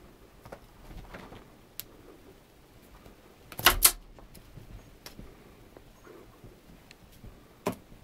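Ragdoll kittens playing with a feather wand toy on a bed: faint rustles and small ticks, a quick double knock about three and a half seconds in, and another sharp knock near the end.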